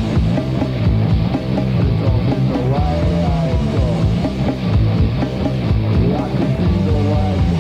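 Punk rock band recording playing: electric guitar over a steady beat, loud and dense throughout.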